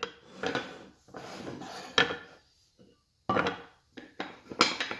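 Oak and walnut strips being handled and laid out on a workbench: a series of wooden knocks and clacks, with a brief scraping stretch a little after a second in and a quick run of clacks near the end.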